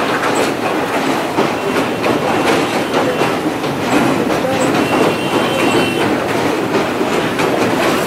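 Rameswaram Express passenger coaches rolling slowly over a steel truss railway bridge, their wheels clattering over the rail joints. A faint thin wheel squeal comes in about five seconds in.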